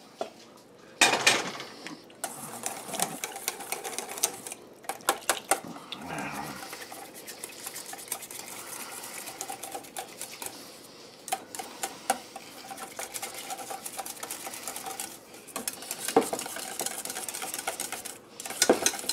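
Chicken stock poured from a saucepan splashes into a stainless steel mixing bowl about a second in. Then a wire whisk beats the stock into canned cream soups, its wires rapidly scraping and clicking against the metal bowl, in bouts with a few short pauses.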